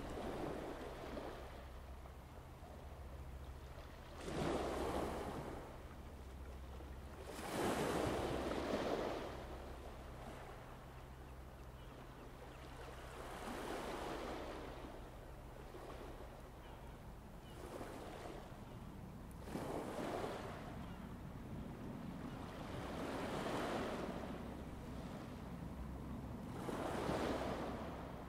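Sea waves washing in, swelling and falling away about every three to four seconds, over a steady low hum.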